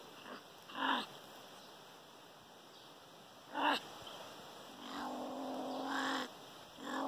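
Young pine marten calling: two short calls, then a long drawn-out pitched call about five seconds in, and another starting near the end.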